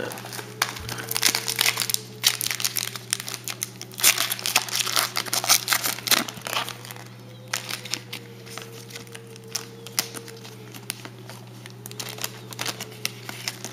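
Shiny foil wrapper of a 2007 Upper Deck Trilogy football card pack crinkling as it is handled before being opened. The crinkling comes in uneven bursts, thickest around the middle.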